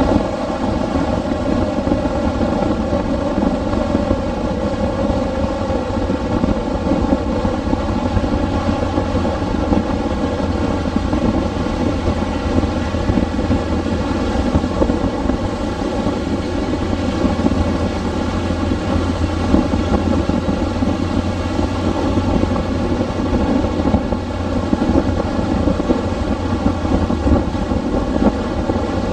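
Steady wind rush over the microphone and the motorcycle's engine running at cruising speed as the bike rides along the road.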